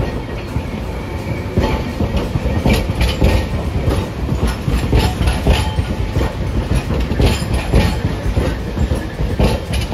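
Hiroshima Electric Railway streetcar running past close by: a low rumble from the car, with its wheels clacking over rail joints and points in a quick, irregular series.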